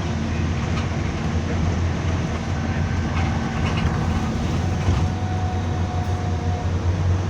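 Bus engine running with a steady low drone, the engine-on noise behind the bus's weird sound. Faint higher tones come and go in the middle.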